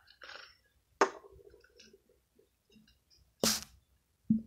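Nearly empty lotion bottle being squeezed, sputtering air out in short noisy bursts, the last with a low buzz; it makes that noise because little lotion is left. A sharp click about a second in.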